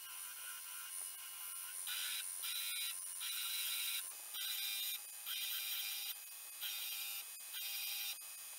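Belt grinder running, with a Damascus steel dagger blade pressed against the belt in repeated short passes, each a burst of grinding hiss, starting about two seconds in. This is the grinding of the blade's flats to even out its thickness.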